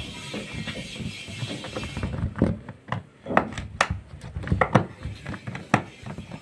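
Rusted screw being turned out of a washing machine's plastic cabinet with a flat-blade screwdriver. From about two seconds in there are irregular sharp clicks and creaks as the rusted thread gives.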